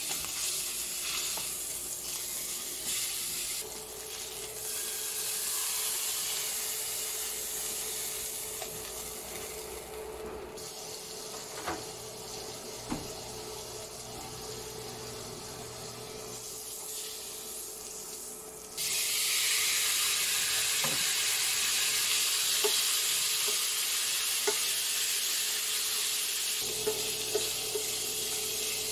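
Fat sizzling in a nonstick pan as pork belly fries in oil and butter. About two-thirds in the sizzle jumps suddenly louder as cubed pork belly goes into the hot fat, and tongs click against the pan as the pieces are turned.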